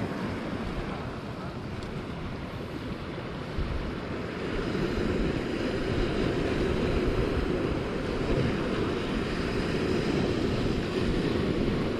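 Steady wash of sea surf with wind buffeting the microphone, growing a little louder about four seconds in.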